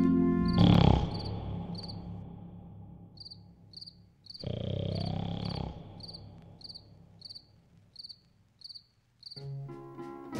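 Crickets chirping in short high pulses, two to three a second. A sudden loud hit about half a second in fades away over a couple of seconds, another loud sound lasts about a second near the middle, and music comes back in near the end.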